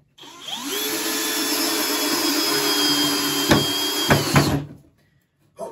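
Bosch cordless drill driving a screw into a wooden board: the motor spins up with a rising whine, runs steadily under load for about four seconds with two sharp knocks near the end, then stops.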